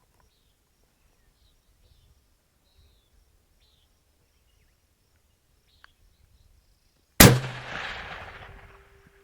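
A single rifle shot from a suppressed 6.5 PRC bolt-action rifle, fired at a one-mile steel target, about seven seconds in. Its report rolls away and fades over about two seconds.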